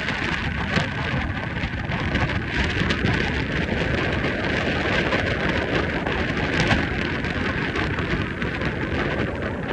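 Storm wind buffeting the microphone, a steady heavy rumble, over a constant hiss.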